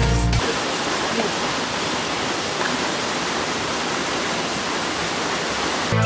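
Steady rushing of a tall, narrow waterfall's falling water, heard once background music cuts off about half a second in.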